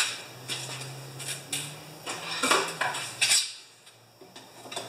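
Metal clinks and clanks from handling metal parts and tools at a snowblower: several irregular knocks in the first three seconds, then a few faint ticks.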